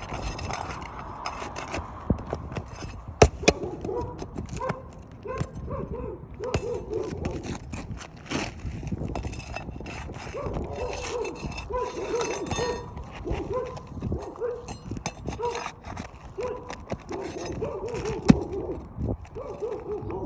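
Asphalt shingles being pried off a roof: repeated short squeaks and scraping as the shingles and nails are worked loose, with a few sharp metal clinks.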